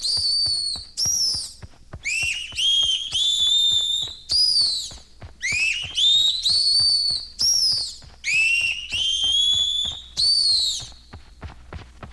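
Vinyl sound-effect record: shrill, high-pitched squealing screeches of a giant vampire bat, in four bursts of several rising-then-falling shrieks each, over faint record ticks.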